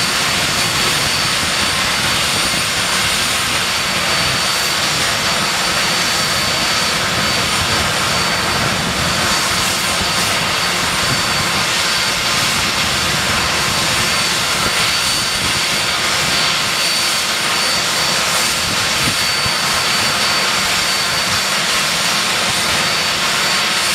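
Handley Page Victor K.2's Rolls-Royce Conway turbofan engines running steadily on the ground during start-up: a steady high whine over a broad rushing noise.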